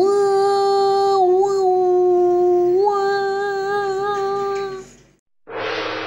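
A person's voice holding one long, steady note for about five seconds, with two small lifts in pitch, then stopping abruptly. After a short gap, a breathy, hissing sound with a faint held tone starts near the end.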